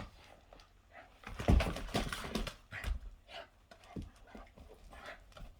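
A dog panting, with irregular knocks and scuffs that are loudest about a second and a half in.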